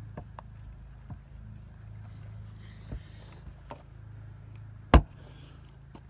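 Screwdriver driving the mounting screws of a slam latch into a metal baggage door: a few light clicks and scrapes, then one sharp knock about five seconds in, over a steady low hum.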